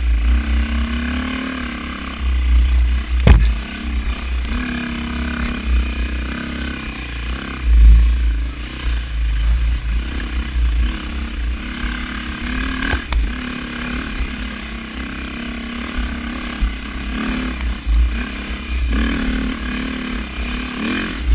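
Dirt bike engine running at low speed on a rough climb, its pitch rising and falling with the throttle, with a steady low rumble from the bike shaking over the ground. Sharp knocks about three seconds in and again near the middle as the bike hits obstacles on the trail.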